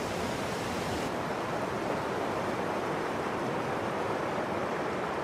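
River rapids: white water rushing and churning over rocks, a steady, even rush of water.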